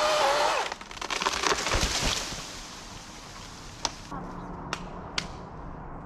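A chainsaw running at high revs stops cutting about 0.7 s in. For the next second and a half wood cracks and splinters, with a couple of low thuds, as a cut trunk gives way. After that a low steady hum is left, with a few sharp clicks.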